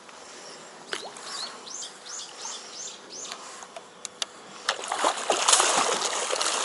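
A large bass strikes a big-bait swimbait at the surface beside a dock and thrashes, making loud, continuing splashing from about five seconds in. Before it come a few sharp clicks and a run of short falling chirps.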